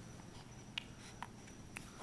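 Faint small clicks from a one-week-old baby, about three in two seconds, over quiet room tone with a faint steady high whine.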